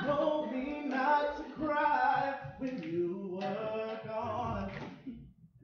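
A man singing a cappella, drawing out long held notes without words. His voice drops away about five seconds in.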